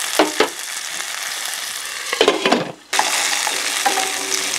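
Small onions (shallots) and green chillies sizzling in hot oil in a stainless steel pan, stirred with a wooden spatula that knocks and scrapes against the pan a few times. The sizzle briefly drops out about two and a half seconds in, then carries on.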